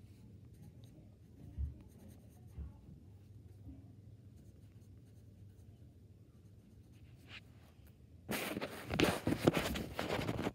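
Pencil writing on notebook paper: a faint, soft scratching for most of the time. About eight seconds in, it gives way to a loud rustling and rubbing as the camera is moved and handled.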